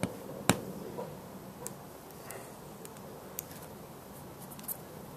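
Sharp plastic clicks and light taps as a windscreen repair kit's injector is fitted onto its pedestal on the glass: one loud click about half a second in, then a few faint ticks, over a faint steady hum.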